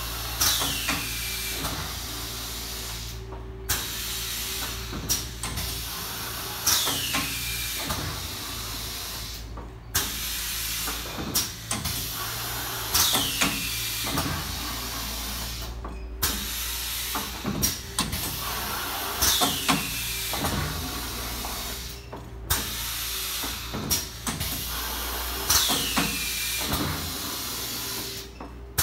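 Moriarty 18 x 24 inch flatbed screen printer cycling about once every six seconds, five cycles in all. Each cycle brings a hiss of air that falls in pitch, then clacks and knocks as the screen frame and squeegee carriage move, over a steady machine hum.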